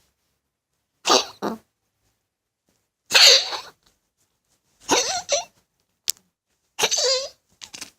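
A pet coughing in five short fits, each a quick double or triple hack, about every one and a half to two seconds. The fit about three seconds in is the loudest.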